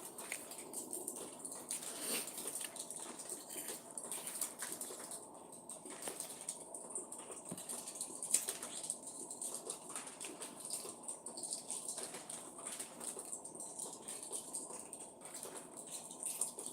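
Backyard ambience with birds chirping: a steady high-pitched hiss and many light ticks and rustles throughout.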